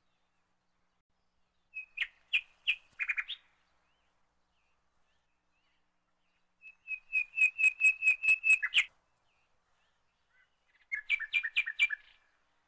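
A small bird chirping in three short phrases of quick, evenly repeated high notes about two, seven and eleven seconds in. The middle phrase is the longest and loudest, with dead silence between phrases.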